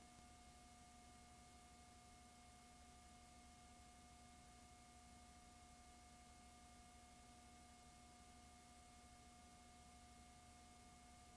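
Near silence: faint, steady hiss and electrical hum from a VCR playing a blank stretch of tape.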